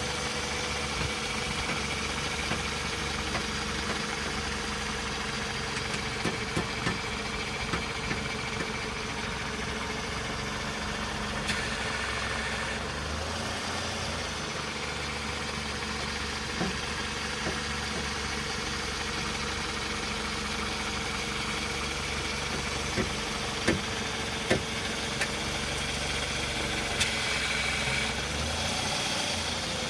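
Car engine idling steadily while the wheels are turned, with a whine whose pitch sags briefly near the start and again near the end. Scattered sharp clicks and knocks, a cluster about a quarter of the way in and another about three quarters in, are the noise that turning the wheels brings out.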